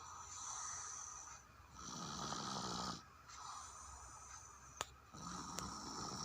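A person snoring in sleep, slow steady breaths in and out, about two full breaths, the louder deeper snore on every other phase. A brief sharp click sounds near the middle.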